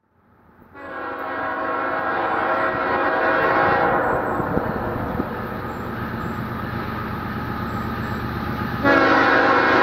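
Air horn of an approaching CSX freight locomotive sounding a long blast that starts about a second in. It softens at about four seconds, then swells sharply louder again near the end.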